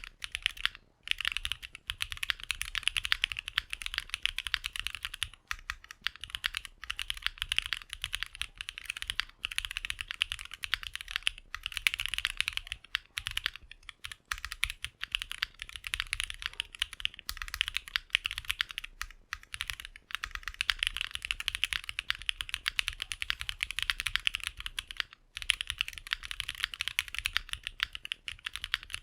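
Fast, continuous typing on a custom 65% mechanical keyboard: lubed and filmed AEBoards Snag switches in an aluminum plate, topped with GMK ABS keycaps. The keystrokes run densely, with a couple of brief pauses partway through.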